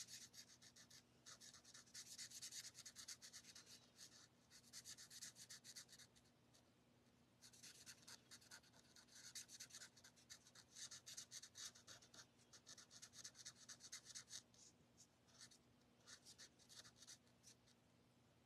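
Faint scratching of a marker tip on paper as a stamped image is coloured in quick, short back-and-forth strokes. The strokes come in spells, with a pause about six seconds in and a quieter stretch near the end.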